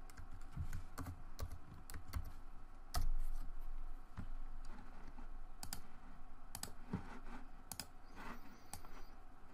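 Computer keyboard typing a short command, then scattered single clicks, the loudest knock about three seconds in, over a faint low hum.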